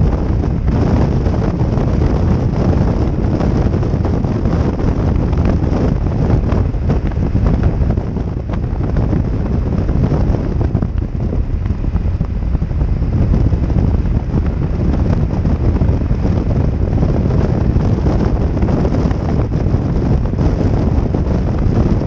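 Steady rumbling wind buffeting a helmet-mounted camera's microphone on a BMW R1200GS Adventure motorcycle cruising at highway speed, with the bike running underneath the rush of air.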